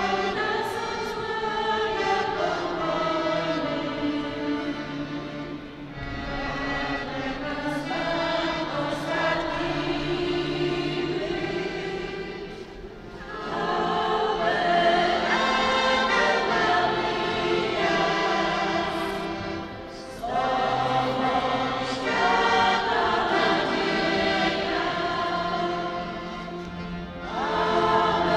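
Women's folk choir singing a Marian song in unison phrases of about seven seconds with short breaks between, accompanied by a piano accordion, in a reverberant church.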